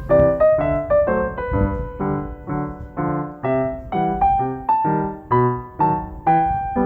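Background piano music: a steady run of single notes at about two a second, each struck and fading.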